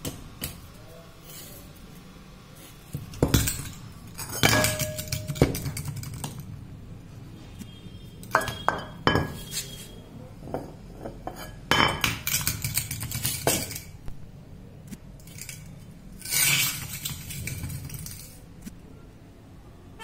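Metal parts of an old USHA Prima ceiling fan clanking and clinking against each other and the concrete floor as the fan is taken apart, in several bursts of knocks, some ringing briefly.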